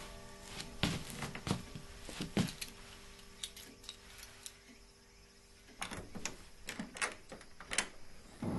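Soft, scattered knocks and clicks of careful steps in a wooden hallway, then a quick cluster of metallic clicks and rattles as a key is worked in a door lock near the end.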